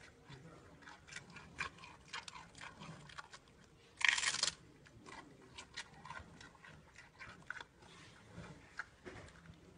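Giant panda chewing a bamboo shoot: a run of short, wet crunches and clicks as it grinds the stalk. A louder crunch lasting about half a second comes about four seconds in, as it bites into the shoot.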